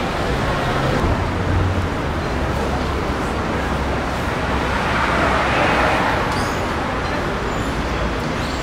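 City street traffic noise: a steady rumble of passing cars, with a vehicle engine humming low through the middle and a vehicle swelling past about five to six seconds in.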